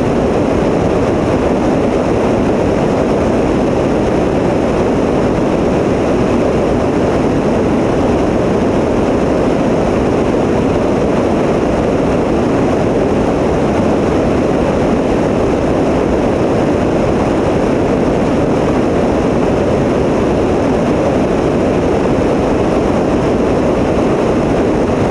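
Tecnam P92 light aircraft's engine and propeller running steadily, an even noise with no change in level or pitch.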